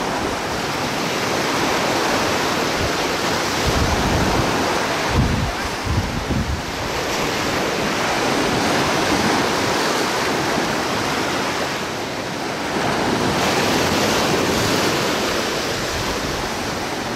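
Sea surf washing onto a sandy beach, a steady rush that swells and eases every few seconds, with wind buffeting the microphone in low rumbles a few seconds in.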